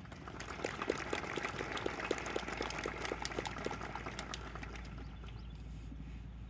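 Small audience applauding. The clapping starts about half a second in and thins out about five seconds in, over a low steady rumble.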